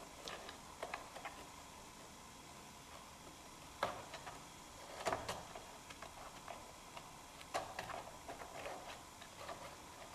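Faint, scattered clicks and taps of small parts being handled inside an opened iMac, as a sensor wire is pressed into place around the fan housing, with a few sharper clicks about 4, 5 and 7.5 seconds in.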